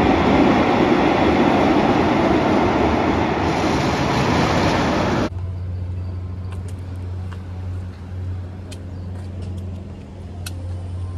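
Steel roller coaster train running along its track, a loud rushing rumble that cuts off suddenly about five seconds in. A steady low hum with a few faint ticks follows.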